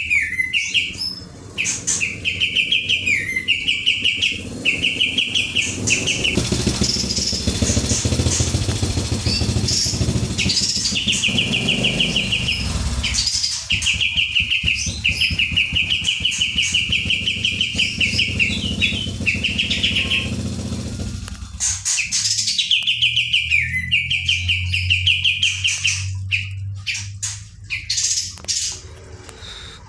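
Kapas tembak songbird singing in long runs of fast, rapidly repeated notes, broken by short pauses. A low rumble sits underneath in the middle stretch and again later on.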